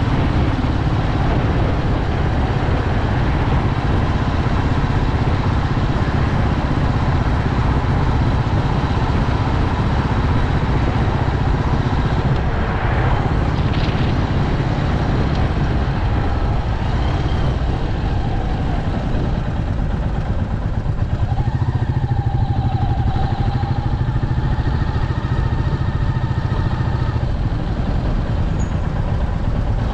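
Royal Enfield Meteor 350's single-cylinder engine running steadily while riding at town speed.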